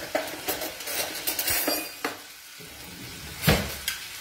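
Food sizzling in a frying pan on a gas stove while a wooden spoon stirs and scrapes, with clinks of utensils and dishes against the pans. A sharp knock comes about three and a half seconds in.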